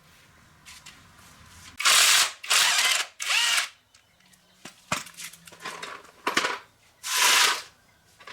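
A power tool run in short bursts: three in quick succession about two seconds in, and one more about seven seconds in, each about half a second long with a hissing, high-pitched sound.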